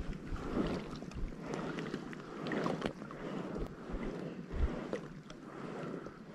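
Oars swishing and splashing through lake water in strokes roughly a second apart as a small inflatable boat is rowed.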